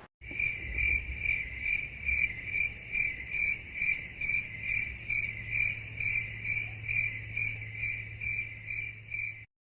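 Crickets chirping, the stock 'awkward silence' meme sound effect: an even run of high chirps about twice a second over a faint low hum.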